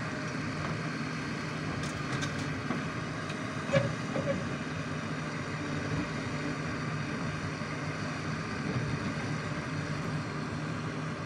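Diesel engines of a JCB 3DX backhoe loader and a Mahindra tractor running steadily, with a short sharp knock about four seconds in.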